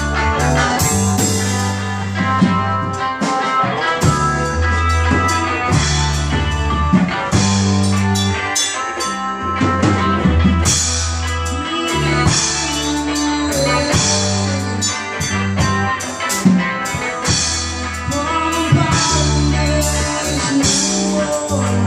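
A band jamming live: amplified guitar and a drum kit playing together, with deep held bass notes that change every second or so under the cymbal and drum hits.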